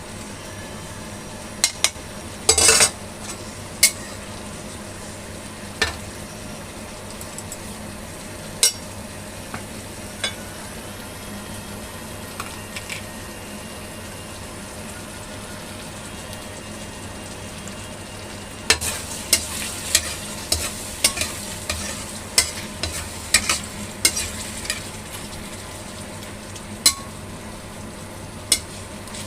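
Chicken wings frying in a pan with a steady sizzling hiss. A cooking utensil clacks and scrapes against the pan in scattered strikes, coming thick and fast in the last third.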